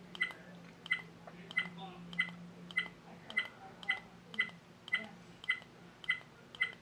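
Dash cam key beeps: about a dozen short high beeps at an even pace of under two a second. Each is the camera's button-press confirmation as it steps to the next stored photo.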